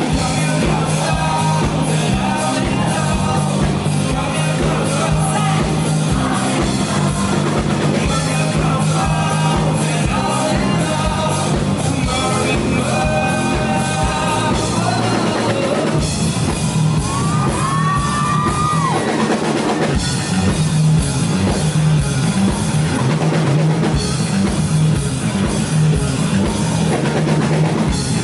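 A rock band playing live: a driving drum-kit beat, bass and electric guitars, with singing and a sliding high note about halfway through.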